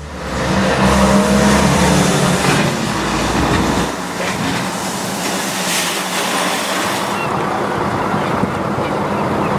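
Passenger train running at speed: a steady rushing noise of the wheels on the track, with a low drone that drops away about four seconds in.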